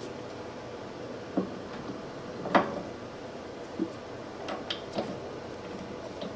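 Metal parts being handled and set down: a few separate knocks and clinks, the loudest about two and a half seconds in and a small ringing cluster about five seconds in, over a steady low hum.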